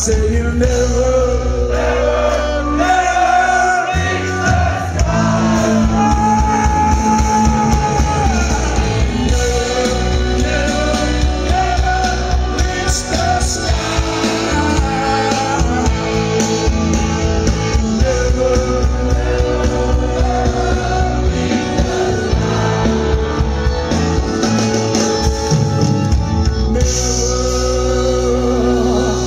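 Live rock band playing loudly, heard from within the audience: drums, bass guitar, guitar and keyboards with a melodic line over them.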